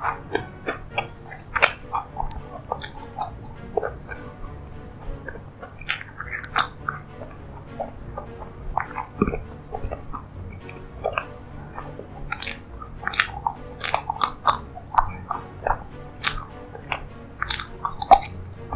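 Close-miked chewing and biting of soft, sticky desserts: irregular wet smacks and small clicks of the mouth.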